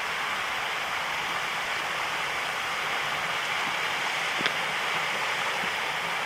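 Steady rush of a fast-flowing mountain river, with a single sharp tick about four and a half seconds in.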